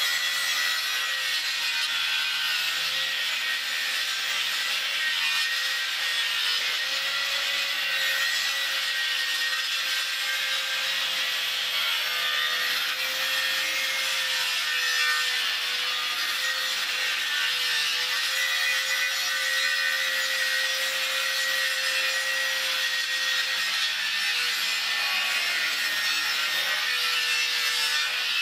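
Handheld circular saw running continuously through a long cut in a plywood sheet, its whine wavering slightly in pitch.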